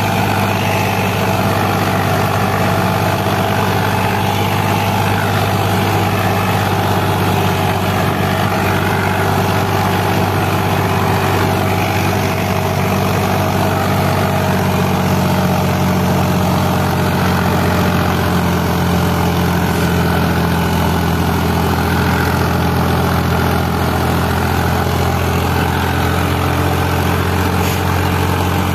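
Indo Farm tractor's diesel engine running steadily under load while pulling a disc harrow through tilled soil.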